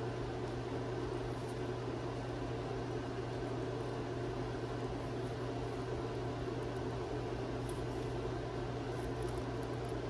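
Steady low hum with an even hiss underneath, unchanging throughout: background room noise, with no distinct sound from the work in hand.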